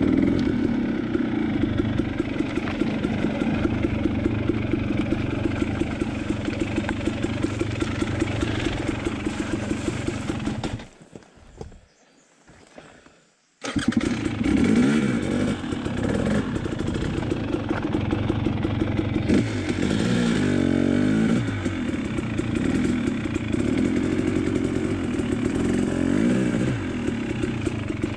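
Dirt bike engine running under way, its pitch rising and falling with the throttle. About eleven seconds in, the sound drops almost to nothing for two to three seconds, then the engine comes back abruptly. After that there are several rising-and-falling revs.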